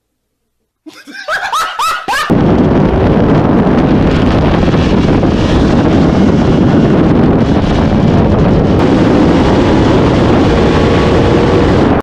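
Heavy wind rush over the onboard microphone of a sportbike at high speed, with the engine pulling underneath as it accelerates through fifth into sixth gear. Just before, a second or so of voices and laughter.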